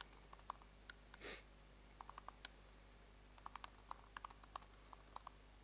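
Laptop keyboard keys clicking faintly as a command is typed, in short irregular runs, mostly in the second half. A short soft hiss about a second in.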